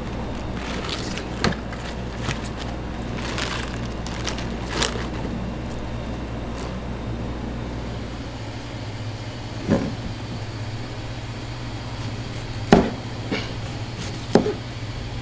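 Burger-kitchen work sounds over a steady low machine hum: scattered clicks and knocks, with three louder knocks in the second half. The deepest part of the hum stops about eight seconds in.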